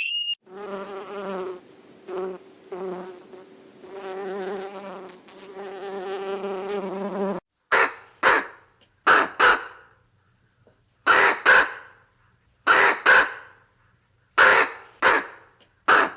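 An insect buzzing steadily for about seven seconds, its hum wavering slightly. It then cuts to a dog barking in pairs of short, rough barks about every second and a half.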